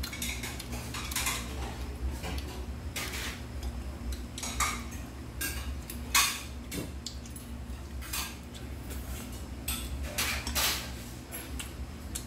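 Metal chopsticks tapping and scraping on ceramic plates and bowls as food is picked up and eaten, in irregular short clicks every second or so.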